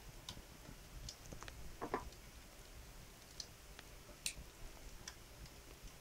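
Wood fire in a stone fireplace crackling faintly, with scattered irregular pops and snaps. The sharpest come about two seconds in and just past four seconds.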